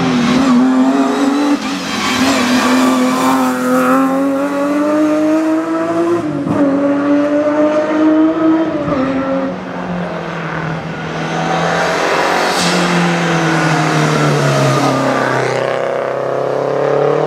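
Rally car engines accelerating hard uphill, the pitch climbing through each gear with gear changes about six and nine and a half seconds in. Near the end a Renault 5 GT Turbo's engine pulls up through the bend, rising again under full throttle.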